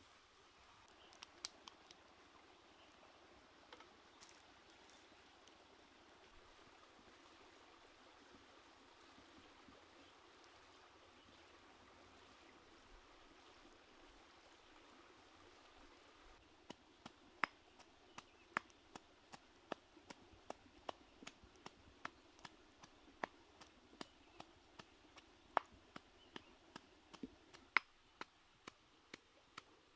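Squid on skewers grilling over hot coals: a faint steady sizzling hiss. From about halfway through, sharp pops and crackles come thick and irregular over it.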